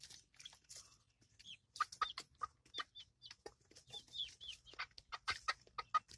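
Several young chickens clucking softly and giving short high calls, mixed with quick sharp taps, as they peck at food scraps.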